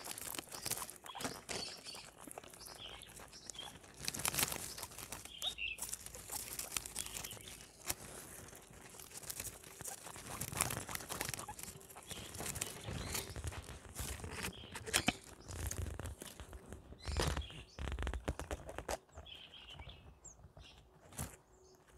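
Guinea pigs chewing and crunching on flowers and greens: a dense run of quick crisp clicks and rustles, with a few short high chirps now and then.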